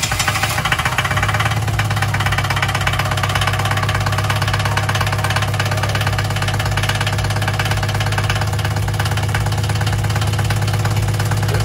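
Bukh DV20 two-cylinder marine diesel idling steadily, sitting on newly fitted motor mounts.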